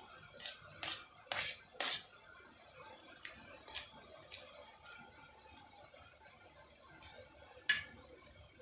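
Metal cutlery clinking and scraping on a dish while eating: a quick run of short knocks in the first two seconds, a few scattered ones after, and a sharp clink near the end.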